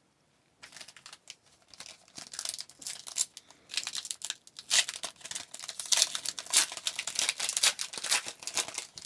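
Wrapper of a hockey card pack crinkling and tearing as it is opened by hand: a dense run of crackles that starts about half a second in and grows busier toward the end.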